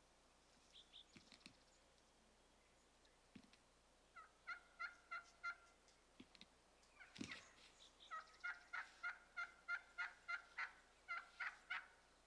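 Wild turkey calling: two runs of evenly spaced yelps, about four a second, the second run longer, with a few faint short calls before them.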